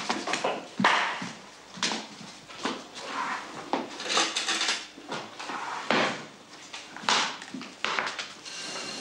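Kitchen drawer pulled open and rummaged through, with a run of knocks, clicks and short clatters.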